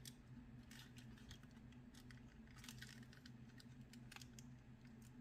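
Near silence with faint, scattered small clicks and taps of plastic model-train parts being handled, over a low steady hum.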